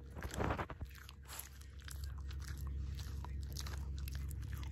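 A small dog crunching and chewing a crisp baked dog-bone treat, with a quick run of loud crunches about half a second in and smaller crunches after.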